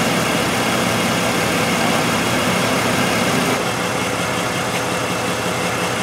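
Jeep Liberty 3.7-litre V6 engine idling steadily while misfiring on cylinders 4 and 6, a misfire traced to ignition coils with shorted secondary windings.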